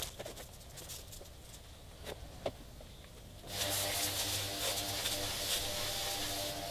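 Spray nozzle hissing steadily as the sodium bicarbonate neutralizing wash is sprayed on, starting suddenly about halfway in, after a few faint clicks.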